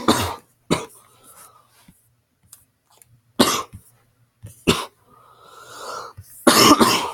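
A person coughing repeatedly in short fits, about five in all, with breaths drawn in between; the longest and loudest fit comes near the end.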